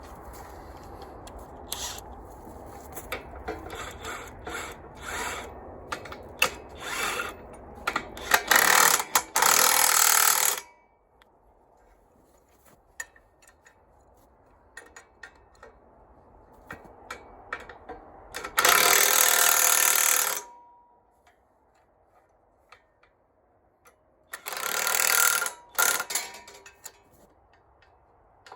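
The log splitter's wedge being bolted on: scattered metal clicks and knocks, then three loud bursts of a power tool driving the bolts, each about two seconds long, about nine, nineteen and twenty-five seconds in.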